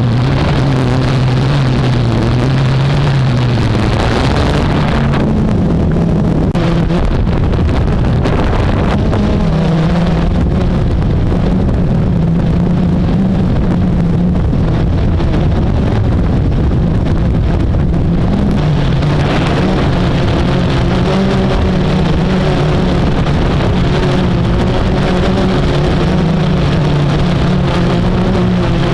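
Blade 350QX quadcopter's electric motors and propellers running in a steady drone, the pitch drifting up and down as the motor speeds keep changing, over a rushing wind noise.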